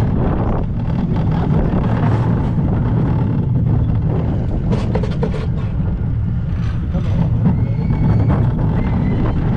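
Gerstlauer bobsled roller coaster car running along its track, heard from on board: a steady low rumble with a few clacks, and a faint high squeal coming in near the end.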